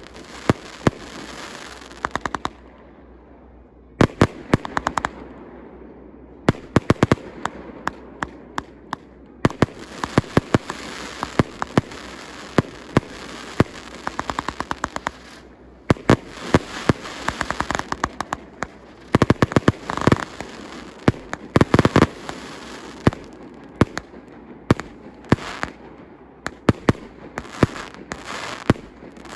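Fireworks display launching: rapid volleys of sharp bangs and crackles in clusters, with a short lull a few seconds in.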